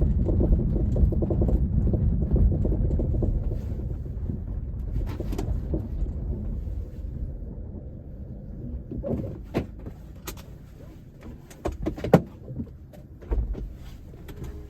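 Kia Optima (JF) on the move, with a low road rumble that fades after a few seconds, then several sharp knocks near the end: the rear knock that the owner is recording.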